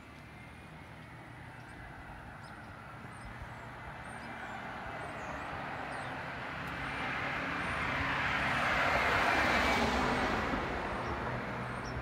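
A car driving past on the street, its noise building slowly, loudest about nine to ten seconds in, then fading. Faint bird chirps in the background.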